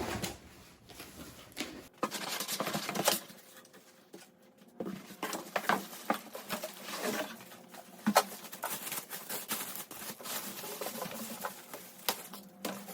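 Packaging being handled while an espresso machine is unboxed: irregular rustling, crinkling and light knocks. The sound comes in bursts, with a short lull around four seconds in.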